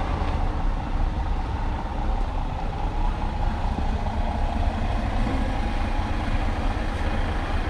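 Heavy diesel truck engine idling steadily, a constant low rumble that neither rises nor falls.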